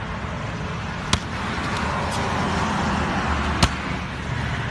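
A watermelon coated in latex paint slamming onto concrete: two sharp thuds about two and a half seconds apart, the second louder, over a steady background hiss.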